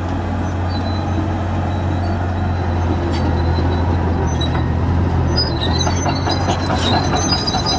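Caterpillar D7 bulldozer's diesel engine running steadily under load, with its steel crawler tracks squealing and clanking, the squeals thicker from about five seconds in.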